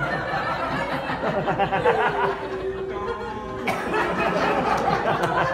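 An audience in a hall laughing and chattering at once, with one long held note near the middle.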